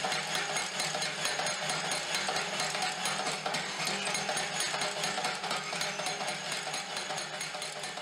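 Homemade Hardy Hammer striking a red-hot railroad spike over and over, drawing it out. The footage is fast-forwarded, so the blows come as a rapid, even clatter.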